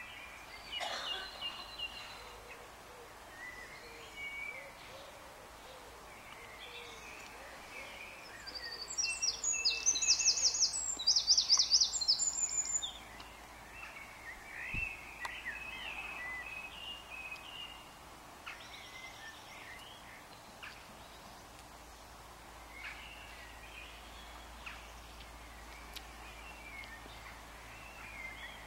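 Songbirds singing over a steady background hiss, with scattered chirps throughout. Between about 8 and 13 seconds in, one bird sings a loud song of rapid, repeated high notes.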